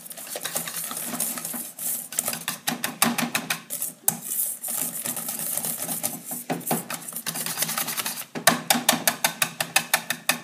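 Wire balloon whisk beating a thick mascarpone cream in a stainless steel bowl: rapid rhythmic clicking and scraping of the wires against the metal, getting louder and sharper near the end.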